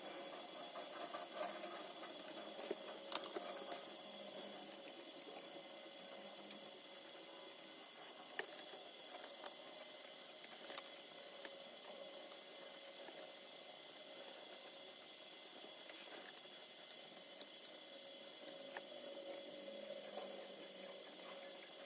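Faint handling sounds of a cardboard phone box and a hot glue gun being moved about while speakers are glued in, with a few scattered small clicks and taps over a steady low hum.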